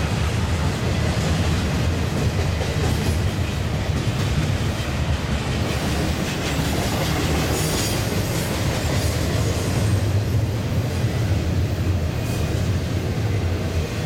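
Cars of a double-stack intermodal train rolling past: a steady, continuous rumble of steel wheels on the rails.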